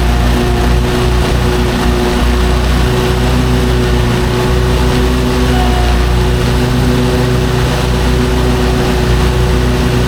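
Lawn mower engine running at a steady speed, loud and unbroken.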